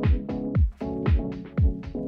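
Electronic background music with a steady kick-drum beat, about two beats a second, over held synth chords.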